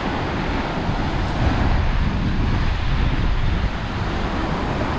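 Wind buffeting the microphone, with small waves breaking and washing across a flat rock ledge at the shoreline.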